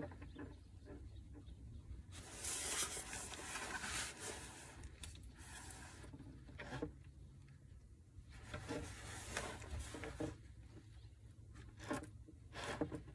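Faint rustling and rubbing of a quilted nylon jacket sleeve and a gloved hand while the oil drain plug is unscrewed by hand, with a few light clicks.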